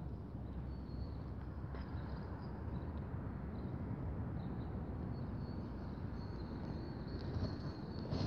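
Wind on the microphone: a steady, uneven low rumble, with a faint thin high tone coming and going.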